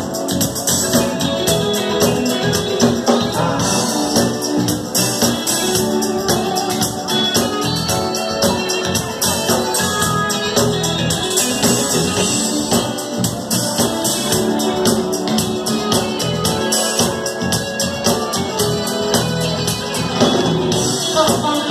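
Live band playing, with a steady beat.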